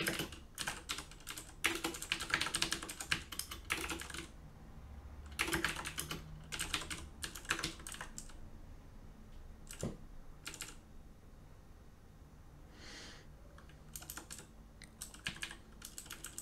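Typing on a computer keyboard: bursts of rapid keystrokes, with a lull of a few seconds in the middle before the typing picks up again near the end.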